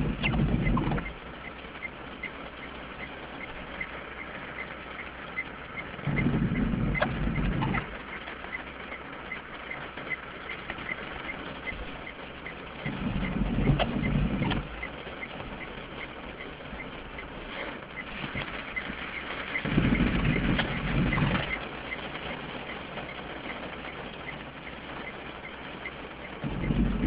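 Rain pattering on a car's windscreen and bodywork, heard from inside the cabin. The wipers are on intermittent: about every seven seconds a sweep of the wiper motor and blades makes a low rumble lasting a second or two, five times in all. A faint fast regular ticking runs underneath.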